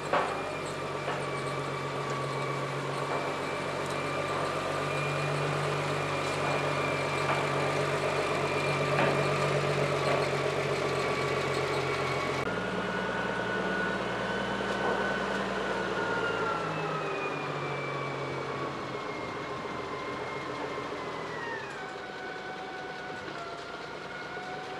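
Wheel loader's engine running as the machine moves, with a steady high whine above the engine note; engine and whine drop in pitch twice in the second half.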